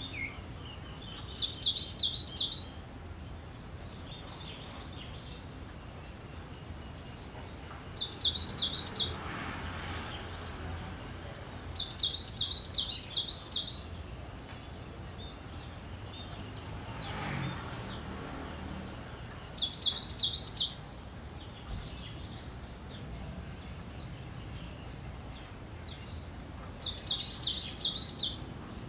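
Cinereous tit singing: five short bursts of rapid, high, repeated notes, each about a second long (one about two seconds), several seconds apart, with fainter short calls between them.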